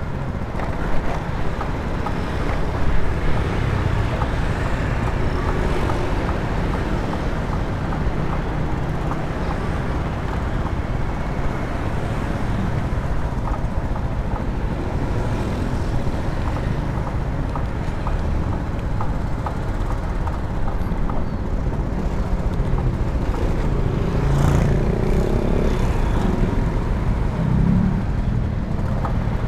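Motor scooter being ridden along a town street: its engine running steadily under a continuous rumble of road and traffic noise.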